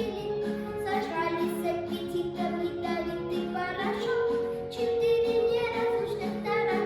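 A girl singing a Russian-language song in long held notes over an instrumental backing track with a steady beat.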